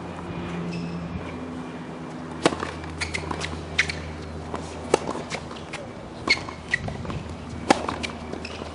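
Tennis rally on a hard court: a series of sharp pops as the ball is struck by racquets and bounces on the court, starting about two and a half seconds in and coming every half second to second and a half, over a low steady hum.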